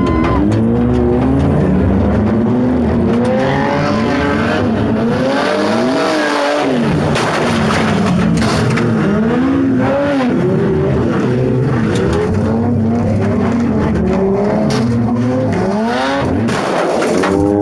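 Car engines revving hard, their pitch rising and falling over and over and overlapping, loudest the 1997 Subaru Impreza's flat-four, heard from inside its cabin. Scattered knocks and clanks come through, thickest about halfway and near the end.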